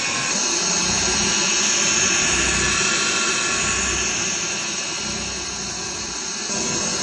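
1949 Hoover 612 upright vacuum cleaner running, a steady whine from its motor and brush with several high tones over a hiss. The level sags a little about five seconds in and comes back just before the end.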